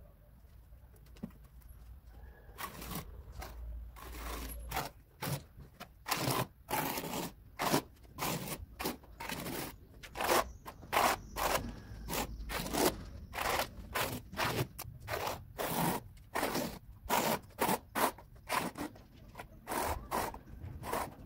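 A notched steel trowel scraping through a bed of wet cement mortar on a concrete slab, combing ridges in short sweeping strokes. The strokes start a couple of seconds in and go on at about two a second.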